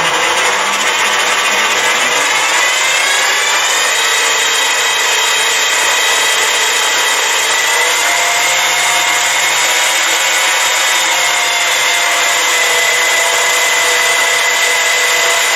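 A 7x14 mini lathe with a brushless DC motor running with its chuck spinning. Its whine rises in pitch over the first few seconds as the speed knob is turned up from the slowest setting, then holds steady at high speed.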